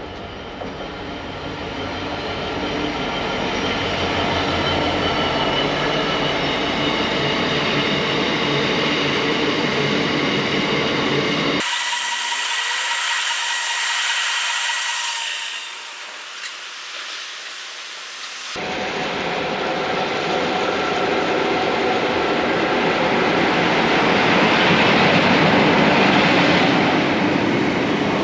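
A train running past on the line, its rumble building up and loudest a few seconds before the end, with a stretch in the middle where the deep rumble drops away.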